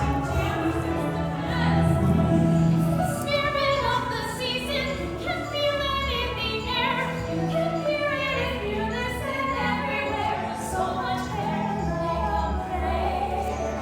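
A small group of performers singing together over instrumental backing with sustained low notes.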